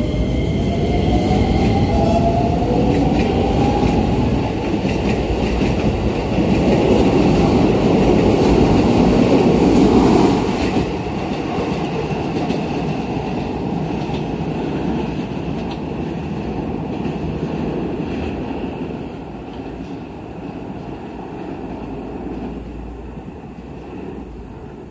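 Keisei new 3000-series electric train pulling out of the station: the whine of its inverter-driven traction motors rises in pitch over the first few seconds, over the rumble and clatter of wheels on the rails. The noise is loudest about ten seconds in, then fades as the train moves away.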